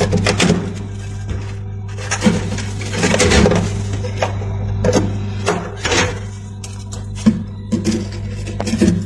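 Metal knife blade scraping and chipping thick frost off a freezer's inner wall and plastic rail, in irregular scrapes and taps over a steady low hum.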